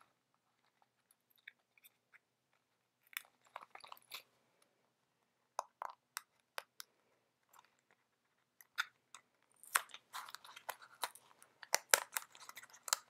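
Packaging being worked open by hand: scattered clicks and crackles with pauses, getting busier and louder near the end as it resists opening.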